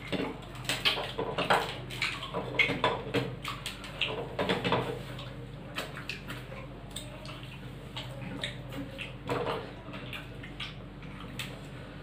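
Two people eating rice and curry with their hands from stainless steel plates: fingers mixing and scooping the rice against the metal, giving irregular clicks and scrapes, along with chewing.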